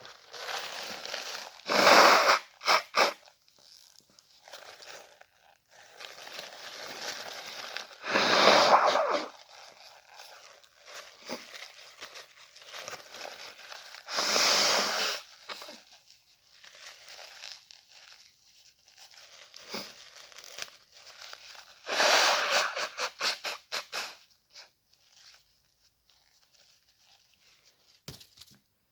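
A person sneezing and blowing the nose: four loud bursts of breath a few seconds apart, with quieter sniffs and breaths between. The last burst, about 22 seconds in, is the longest and flutters.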